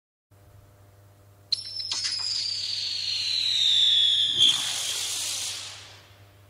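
Weco Twister whistling spinner firework going off: a sudden ignition, then a loud whistle whose pitch slides slowly downward for about three seconds. It ends in a short pop and a hissing burst that fades out.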